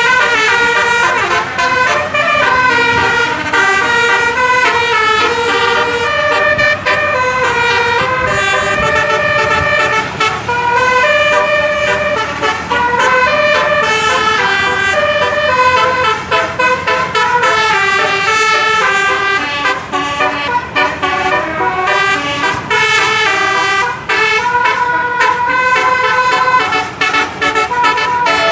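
Bus's Rahma 18-note telolet musical air horn playing a long, unbroken run of melodies. Several notes sound together and step up and down every fraction of a second.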